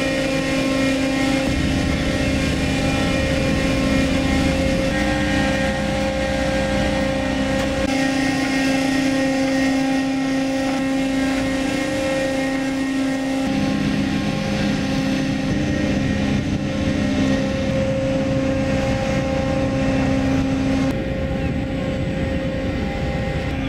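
Tugboat diesel engines running steadily, a drone made of several held tones. The mix of tones shifts slightly twice.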